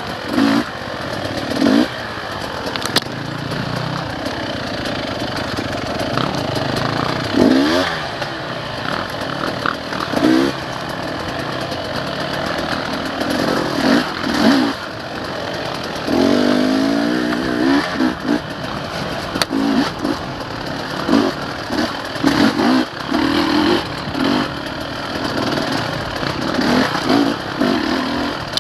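Dirt bike engine revving up and down as the throttle is worked along a tight woods trail, its pitch rising and falling again and again, with scattered short knocks.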